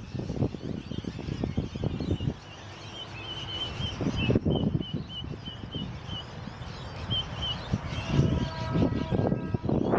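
Small birds chirping: a run of short, high chirps repeated every half second or so, over wind buffeting the microphone. Near the end a steady humming tone with several pitches comes in.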